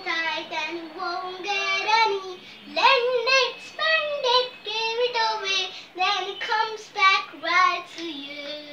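A young girl singing solo, with a held note near the end.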